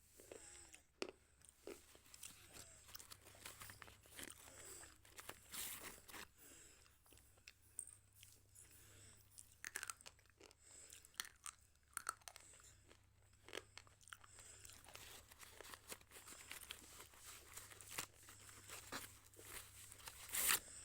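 Close-miked biting and chewing of slate pencil: irregular sharp, crunchy snaps scattered throughout, with the loudest crunch near the end.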